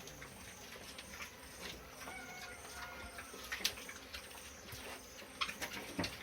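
Pigs moving about in their pen: scattered clicks and knocks, with faint high tones about two seconds in.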